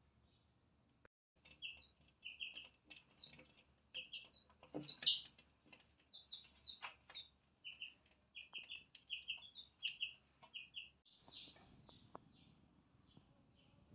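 Young chicks peeping over and over in short, high calls that come in quick runs, loudest about five seconds in.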